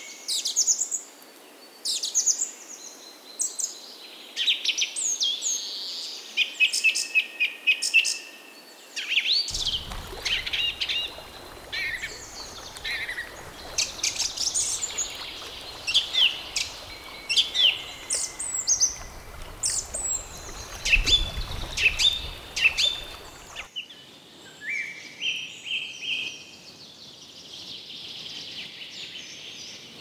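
Several songbirds chirping and singing in short phrases, with quick runs of repeated notes. The faint background under them shifts abruptly about ten seconds in and again about three-quarters of the way through.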